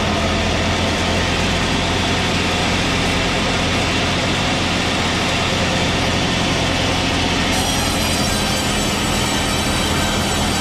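Old-fashioned manual sawmill machine running steadily with a low engine-like hum, its sound getting brighter and hissier about three quarters of the way through.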